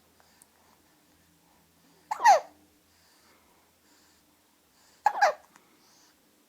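A woman hiccuping twice, about three seconds apart: each hiccup is a sharp catch followed by a brief squeaky, falling pitch.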